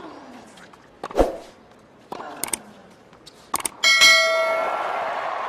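Several sharp hits of the tennis rally, the loudest about a second in. About four seconds in, two quick clicks come before a bell-like notification ding from a subscribe-button animation, which rings on and slowly fades.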